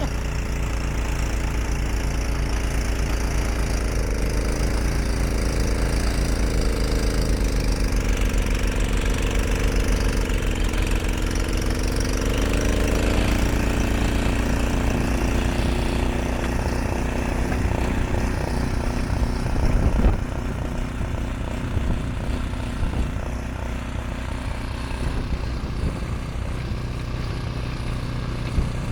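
Ariens Deluxe 30 two-stage snow blower's single-cylinder engine running steadily while clearing snow, with a wavering hum rising and falling for several seconds in the first half. A sharp knock comes about two-thirds of the way through.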